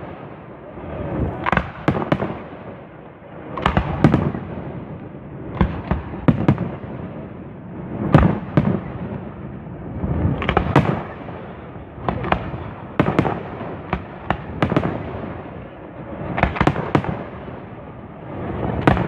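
Fireworks display: aerial shells bursting one after another, a sharp bang every second or two, with a rumble rising and falling between them.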